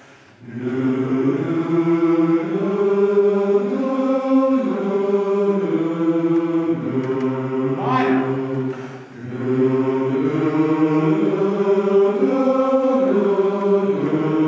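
Men's barbershop chorus singing a vocal warm-up exercise: held chords on an open vowel that move in steps from pitch to pitch. There is a short break about eight seconds in, then the singing resumes.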